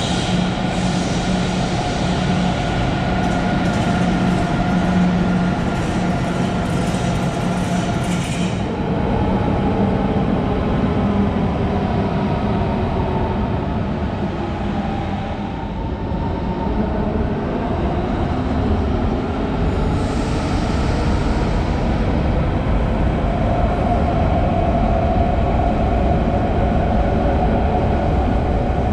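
Electric passenger trains running through a station hall. An ICE train rolls past with a steady hum and hiss that cuts off about eight seconds in. Then the motors of an S-Bahn suburban train whine, gliding in pitch, as it runs along a far track.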